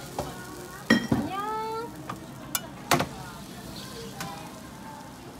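Batter sizzling in a hot cast-iron mini bungeoppang mould, broken by several sharp metal clacks as the hinged mould lid is handled and shut. A short rising squeak comes just after the first clack, about a second in.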